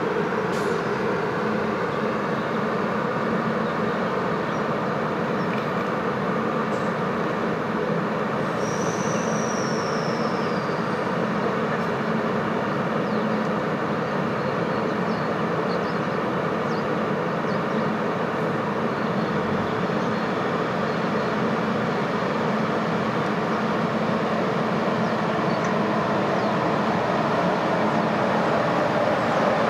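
NSW TrainLink Xplorer diesel multiple unit standing and idling: a steady engine hum with a few held tones, growing slightly louder near the end. A brief high whistle falls in pitch about nine seconds in.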